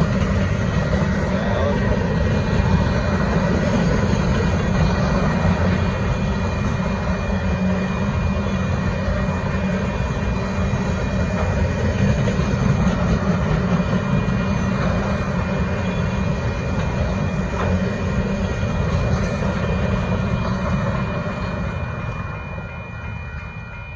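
Freight train of empty intermodal 'bare table' cars rolling through a grade crossing, a steady rumble and rattle of wheels on rail that fades over the last few seconds as the end of the train goes by. The crossing bell rings through it, standing out more clearly as the train noise drops.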